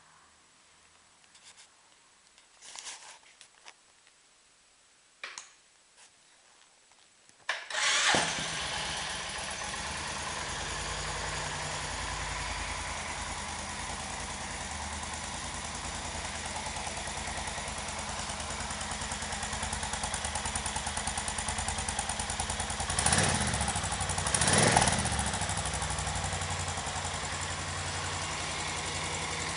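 Suzuki VS 1400 Intruder's V-twin engine: a few faint clicks, then it fires up about a quarter of the way in and settles into a steady idle. Near the end it is blipped twice, about two seconds apart.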